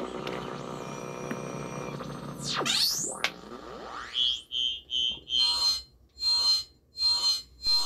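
Synthesized sci-fi sound effect of an alien signal coming in: a dense electronic drone, then quick sweeps falling and rising in pitch, four short high beeps, and steady pulses about one and a half a second.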